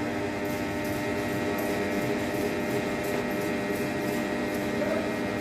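Large wood-sawing machine running steadily, a machine hum with several steady tones held at one pitch.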